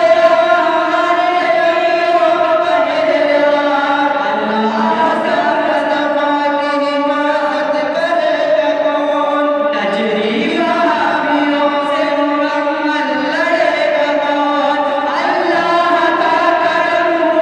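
Male voices singing a naat through microphones, with no instruments. They hold long notes that slide slowly between pitches.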